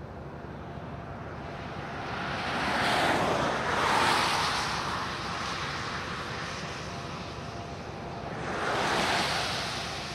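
Cars passing close by on a wet highway: two swells of tyre hiss and road spray, a bigger one about three to four seconds in and another near the end, over a steady low road hum.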